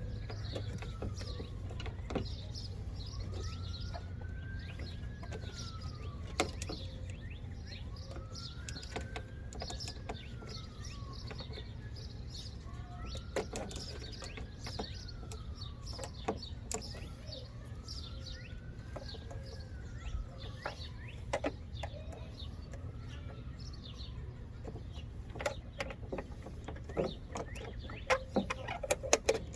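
Birds chirping, with a rising-then-falling call repeated about every three seconds, over scattered light clicks and knocks that come thicker near the end.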